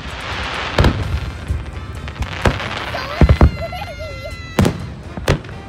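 Fireworks display: aerial shells bursting with sharp bangs, three in quick succession about three seconds in, over a crackling hiss in the first two seconds.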